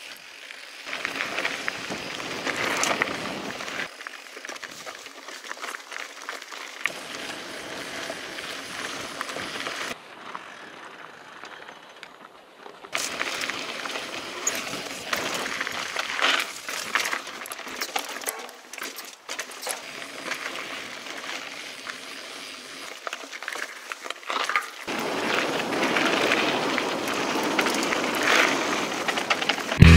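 Mountain bike rolling over a rocky dirt trail: tyres crunching on gravel, with the bike rattling and clicking over the bumps.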